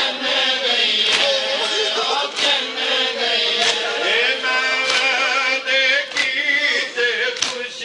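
A chorus of men chanting a noha, a Shia lament, in unison. It is driven by a steady beat of open-handed chest-beating (matam) slaps, about one every 0.6 seconds.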